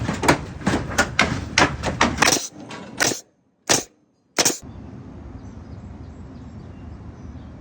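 Hammer driving nails into wood framing: quick strikes about three a second, then three slower blows, stopping about four and a half seconds in and leaving a low steady background.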